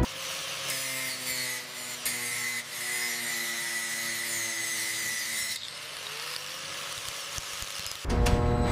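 A power tool running with a steady hiss and a high whine, dropping to a quieter hiss about five and a half seconds in. Music comes in loudly near the end.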